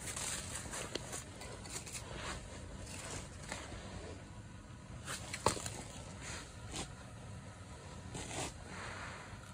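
Handling noise as a freshly caught bass is lifted out of an ice hole and held over packed snow: scattered scrapes, crunches of snow and slush and light clicks, with one sharp click about five and a half seconds in.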